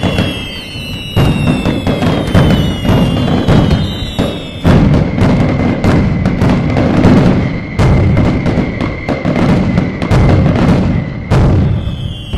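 Fireworks going off in a dense barrage: rapid booms and sharp bangs, with whistling rockets falling in pitch in the first few seconds and again near the end.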